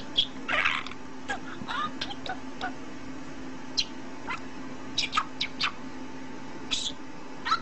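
Budgerigar chirping in scattered short, high calls, some gliding down in pitch, over a steady low hum.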